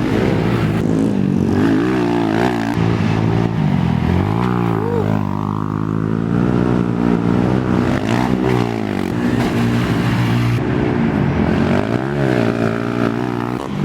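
Racing ATV engines revving hard, their pitch rising and falling again and again with the throttle.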